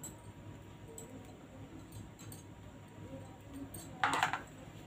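A butter knife being handled while buttering bread in a frying pan: a few faint clicks, then a short scrape about four seconds in, over a faint steady background.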